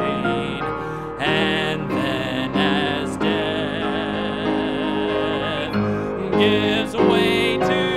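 A gospel hymn sung with vibrato over instrumental accompaniment.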